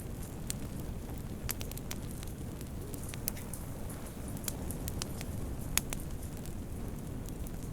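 Wood fire crackling in a fireplace: scattered sharp pops and snaps over a steady low noise of the burning, with the loudest pop about three quarters of the way through.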